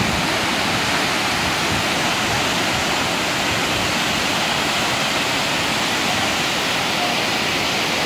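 Tortum Waterfall's many streams of water plunging down a rock cliff: a steady, even rush of falling water that does not change.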